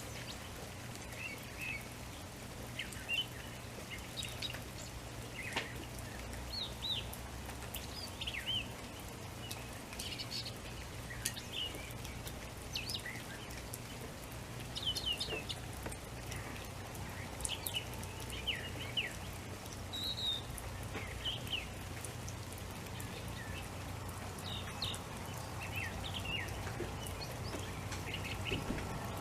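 Birds chirping and calling in spring, with short high chirps every second or so throughout, over a steady low hum.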